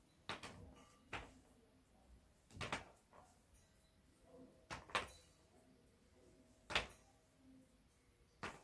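Juggling balls rolled back and forth along a wooden lane board and stopped and pushed off by hand at its ends, each catch or release giving a short wooden knock: about seven knocks at irregular spacing, one every second or two.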